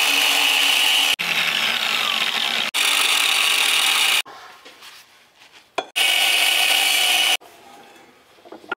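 Angle grinder with an abrasive disc cutting into the end of a steel tube, coping a radius into it. It runs for about the first four seconds, stops, runs again for about a second and a half near six seconds in, and stops.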